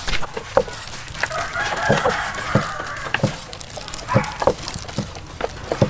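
Steel cleavers chopping cooked pork liver on a thick wooden chopping block, a sharp knock about every half-second to second. A rooster crows in the background for about a second and a half, starting about a second and a half in.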